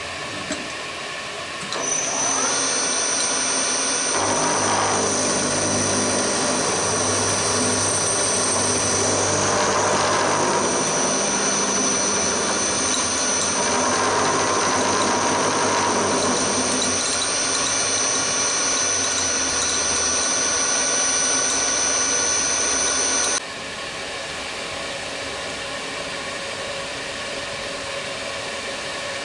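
Milling machine cutting aluminium with an end mill: the spindle runs steadily, and about two seconds in a high whine starts while rough cutting noise swells and fades as the table feeds the work. The whine and cutting stop abruptly about 23 seconds in, leaving the spindle running on its own.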